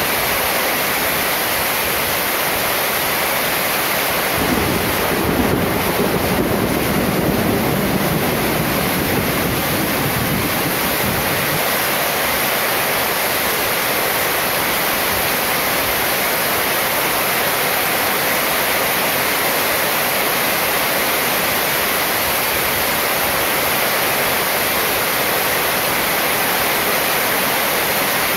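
Heavy rain falling steadily on a corrugated metal roof, with water pouring off the roof edge. A low rumble swells from about four and a half seconds in and fades by about eleven seconds.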